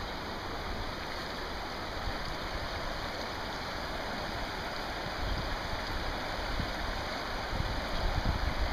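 Shallow, rocky river running steadily over stones, a continuous rushing and gurgling of the current, with a few louder low bumps near the end.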